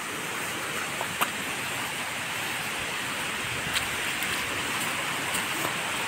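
Steady rush of flowing water, with two faint clicks about a second in and just before four seconds.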